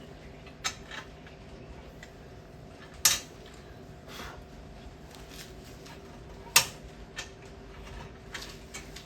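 Household objects being handled and set down: sharp knocks about a second, three seconds and six and a half seconds in, with lighter clicks between, over a steady low hum.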